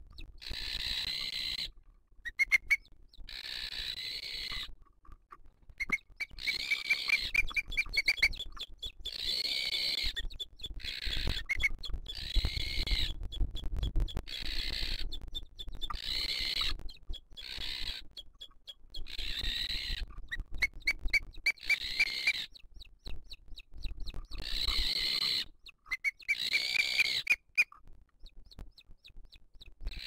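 Booted eagles calling at the nest: high whistled calls, each about a second long, repeating every two to three seconds, with quick clicking notes between them.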